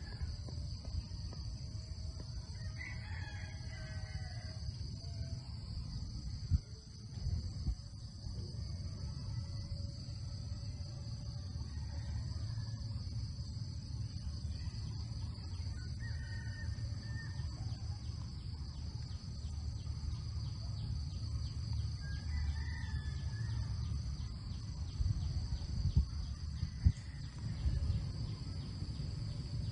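Steady high insect drone over a low rumble, with a few short calls at intervals and a couple of sharp knocks, one about six and a half seconds in and one near the end.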